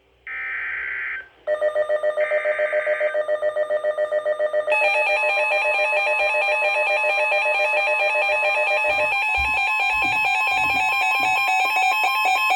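Emergency Alert System SAME data bursts on NOAA Weather Radio, heard as short buzzy screeches. Under them an electronic weather-alert alarm starts up, a rapidly pulsing warble of several tones, and it turns louder and fuller about five seconds in. Together they signal a severe thunderstorm warning being issued.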